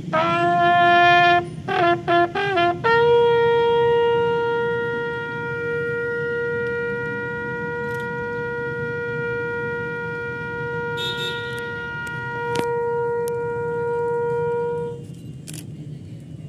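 Ceremonial bugle call played by a single bugler: a first note of over a second, three short quick notes, then one long, higher note held for about twelve seconds before cutting off.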